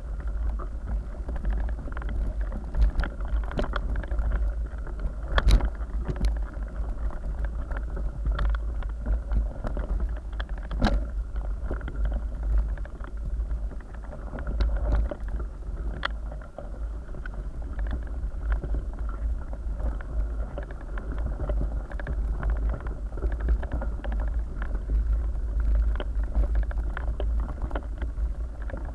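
Mountain bike rolling over a loose gravel and stone track, heard through a bike-mounted action camera: a steady rumble from the rough surface and frame vibration, with frequent clicks and knocks of stones and rattling parts, two sharper knocks standing out.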